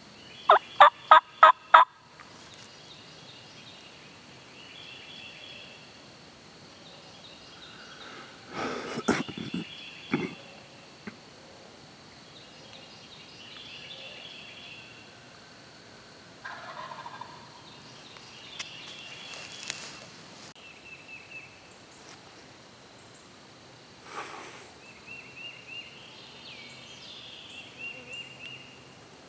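Wild turkey gobbling: a loud, rapid run of about six notes near the start, then further, fainter calls around the middle and later on.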